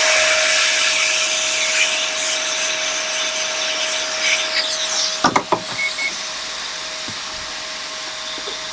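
Steady rushing hiss of an air blower drying isopropyl alcohol off a phone logic board, with a thin steady whine under it; the blowing eases somewhat about halfway through, with a brief short sound around then.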